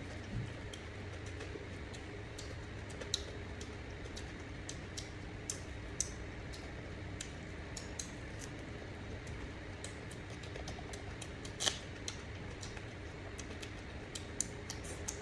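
Scattered light clicks and taps at irregular intervals over a steady low hum, with a sharper click about three seconds in, another about six seconds in, and the loudest near twelve seconds in.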